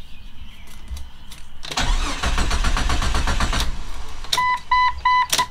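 Jeep Cherokee XJ's starter cranking the engine in an even, rapid rhythm for about two seconds and then stopping, without the engine catching: a crank-no-start, which the owner traces to a dead fuel pump. Then the dashboard chime beeps four times, with a click at the end.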